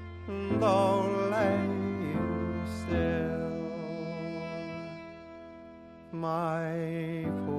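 Instrumental break in a folk song arrangement: a violin plays slow phrases with wide vibrato over a held, drone-like accompaniment. The louder phrases enter about half a second in and again about six seconds in.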